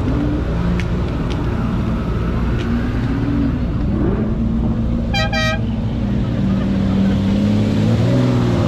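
Car engines running steadily, with two quick car-horn toots in a row about five seconds in.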